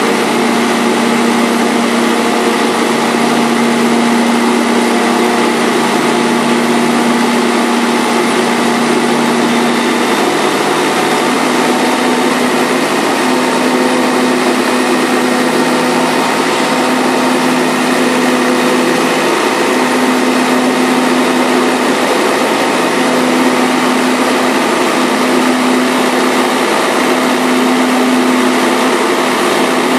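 Vineyard tractor's diesel engine running steadily as one continuous drone, with a slight shift in its pitch about ten seconds in, after which the hum wavers gently.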